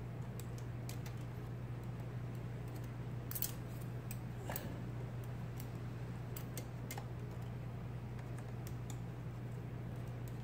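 IBM Selectric-type golf-ball typewriter being tried out: sparse, irregular key strikes and mechanism clicks, a few at a time, over a steady low hum.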